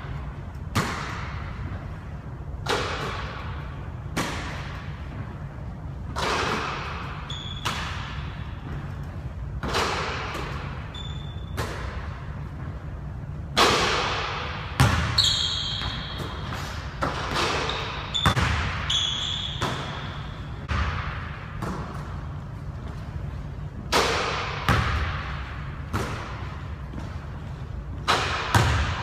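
A basketball bouncing on a hardwood gym floor and striking the hoop, irregular thuds every second or two that echo through the large hall. Short high squeaks of sneakers on the hardwood come in between.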